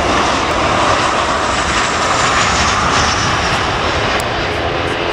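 Airliner's engines running loud as the aircraft passes close by, with a whine that falls slightly in pitch.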